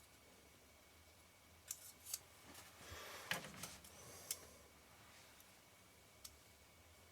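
Small metal lens parts being handled on the bench: a few light clicks and a short rubbing scrape about two to four seconds in, then one more click near the end.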